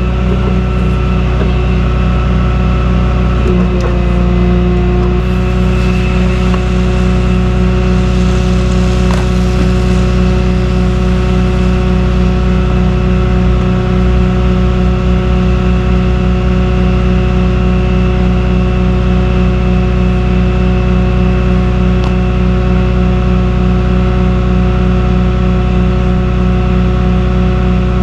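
Tow truck's engine running steadily at a constant speed, with an even low pulsing throb.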